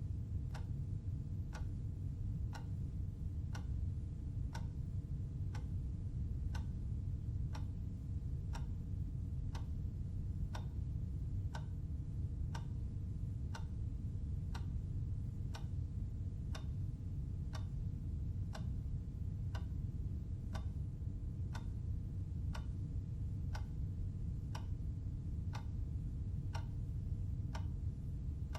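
Clock ticking steadily, about one tick a second, over a steady low hum.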